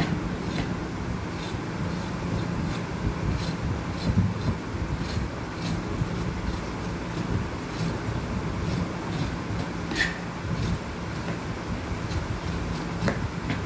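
A kitchen knife scraping the skin off vegetables in short, irregular strokes, over a steady low hum.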